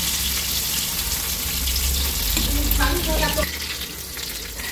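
Hot oil sizzling steadily in a kadai as balls of mung dal batter deep-fry.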